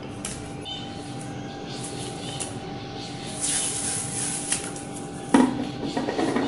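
Electrical tape being pulled off its roll with a rasping screech about three and a half seconds in. Then come knocks and rubbing as the tape is pressed onto the plastic case of a sealed lead-acid battery; the loudest knock is about five seconds in.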